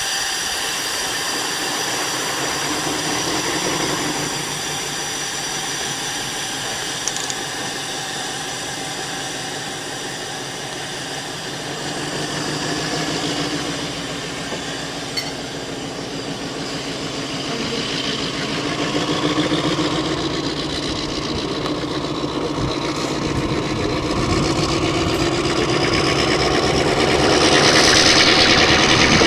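TCDD DE24000-class diesel-electric locomotive's engine idling steadily, getting somewhat louder toward the end.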